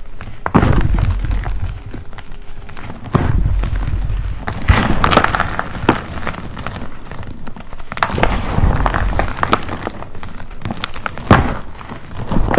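Hands crushing and crumbling chunks of reformed gym chalk, a dry crunching and crackling with a patter of falling powder and crumbs. It comes in several louder surges, the loudest near the end.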